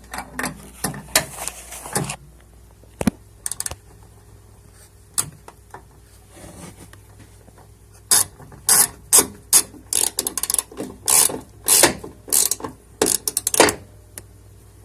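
Socket ratchet clicking in short back-and-forth strokes as a deep socket tightens the nuts on a door check assembly. A few scattered clicks at first, then quicker, busier runs of clicks through the second half.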